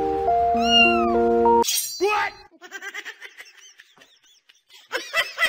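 Background music with held notes that cuts off about a second and a half in, followed by a cat's short meow falling in pitch. Soft, quick voice-like sounds follow and grow louder near the end.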